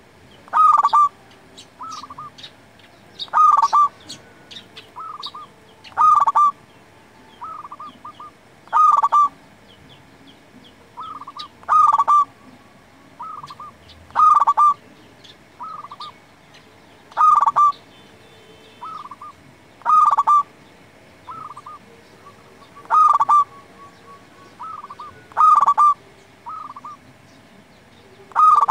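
Zebra dove (perkutut) cooing its song: a phrase of soft, quick coos building to louder staccato notes, repeated about every three seconds.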